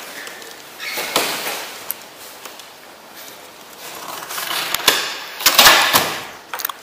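Rustling and scraping noises with a few sharp knocks, loudest from about four to six and a half seconds in.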